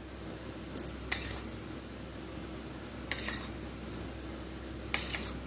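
A steel spoon scraping and clinking against a plate as curd is spooned onto a crisp sago basket chaat, three short scrapes about a second in, about three seconds in and near the end, over a faint steady hum.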